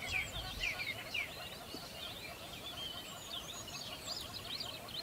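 Many small birds chirping at once, a dense, unbroken chatter of short high chirps.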